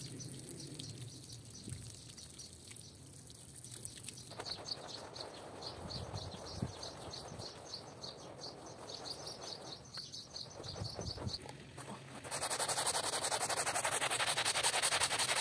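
A stiff brush scrubbing a wet, soapy rug by hand. After a softer watery start, a steady rasp of strokes sets in, and about twelve seconds in a louder, fast scrubbing begins as a hand brush works a small rug.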